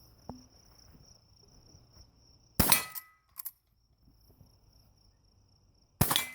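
Two shots from an 1860 Henry lever-action rifle, about three and a half seconds apart, each followed by a brief ring of a struck steel target and a short metallic click as the lever is worked.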